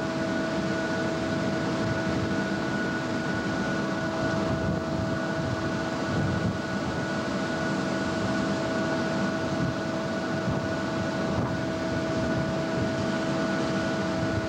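SEPTA electric commuter train standing at the platform, its equipment humming steadily over a constant rush of noise.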